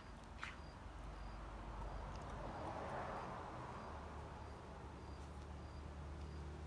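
Faint outdoor background: an insect's short high chirps repeating at even intervals, with a soft rustle swelling and fading in the middle and a low hum starting about four seconds in.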